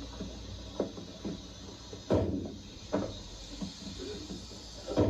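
Balloons bursting under contestants' shirts: a few short, muffled pops, the loudest about two seconds in and another near the end.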